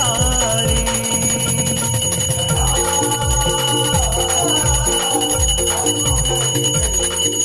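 Devotional music with a steady beat, about two beats a second, and a bell ringing steadily through it during a Ganesh puja.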